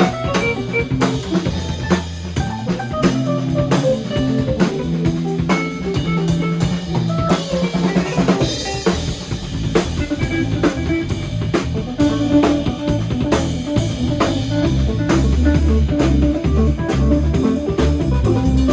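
Band jamming: a drum kit keeping a steady beat of kick, snare and cymbals, with bass and guitar playing along.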